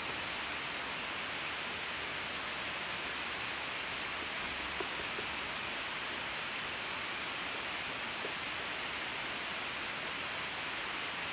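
A steady, even hiss that does not change, with a few faint soft clicks about halfway through and later on.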